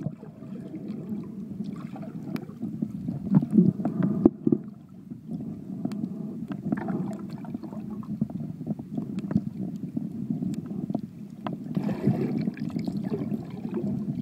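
Muffled underwater noise picked up by a phone sealed in a waterproof case: a dull, uneven rush of moving water with many small clicks and knocks scattered through it.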